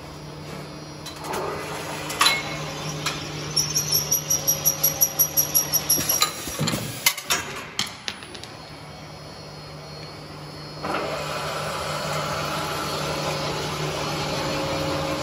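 Double-head rebar coupler tapping machine running with a steady low hum, a few sharp clicks, and a quick run of about six ticks a second lasting a couple of seconds. About two-thirds of the way through, a louder steady running noise sets in.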